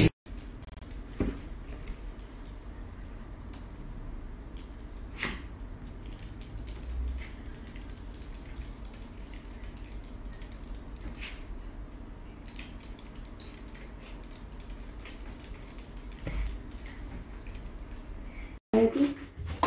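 Quiet room noise with a low hum and a few scattered light clicks and taps, from a small dog's claws on a tiled floor.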